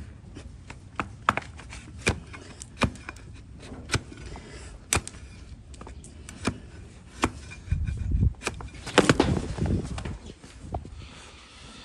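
A cleaver-like hoof knife slices pieces off a donkey's hoof held against a wooden block, giving sharp chopping cuts about once a second. Around eight seconds in comes a louder stretch of low thuds and scuffling.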